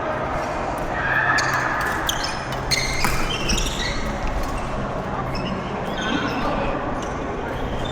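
Badminton doubles rally in a large hall: sharp racket strikes on the shuttlecock a few times, mostly in the first half, with shoes squeaking on the court floor and the hall's echo over a steady low hum.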